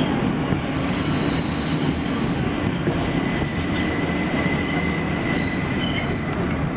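New York City subway train running on elevated track, heard from inside a car: a steady rumble with several high wheel squeals whining on and off over it.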